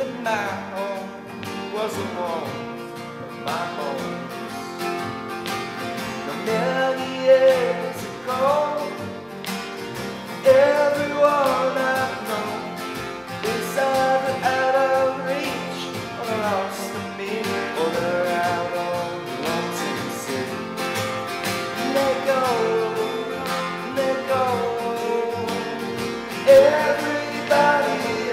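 Live acoustic performance: a man's voice singing over acoustic guitars.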